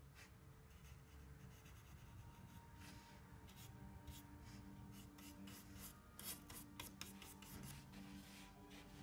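Faint scratchy brushing of a paintbrush working paint on a palette, with soft taps as the brush touches the palette and a small cluster of sharper ticks about six seconds in.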